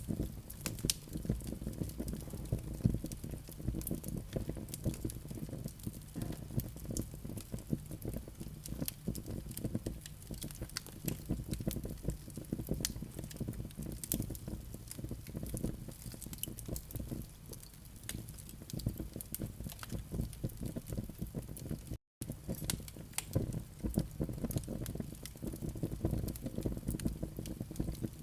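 Burning live coals in a fireplace crackling, with many small sharp pops over the low, steady rumble of the fire. A split-second dropout about two-thirds of the way through.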